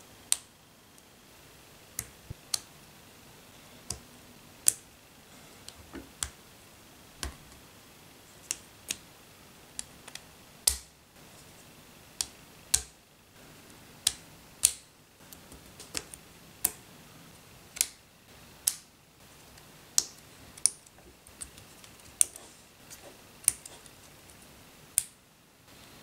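Lego Technic plastic parts being pressed together by hand, each joint snapping home with a sharp click. The clicks are single and come at irregular intervals, roughly one a second.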